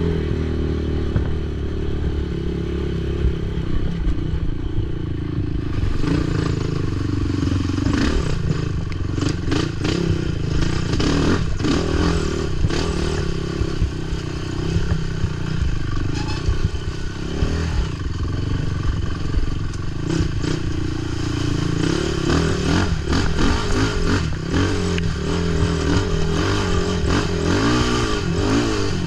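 Race ATV engine running hard, its pitch rising and falling as the throttle opens and closes, with frequent clattering knocks and rattles from the machine going over rough ground.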